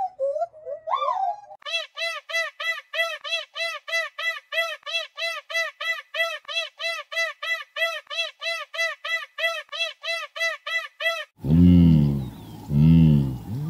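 A bird calling a fast, even run of identical arched notes, about four a second. Near the end it cuts off abruptly and two louder, much lower-pitched animal calls follow.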